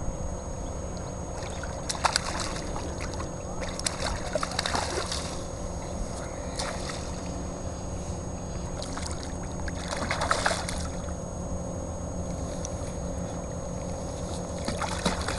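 Steady low rumble of wind on the microphone, with a few short water splashes from a sea trout being played and landed by hand in shallow water. The loudest splash comes about ten seconds in.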